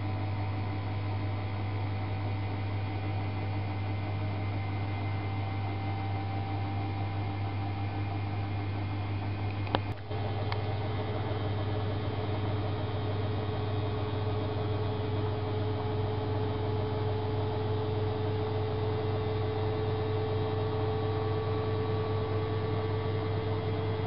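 AEG Öko-Lavamat 8650 front-loading washing machine on a 60 °C coloured-wash programme, its drum standing still with water in it, giving off a steady electrical hum. A sharp click comes about ten seconds in, after which a thin whine sets in and slowly rises in pitch.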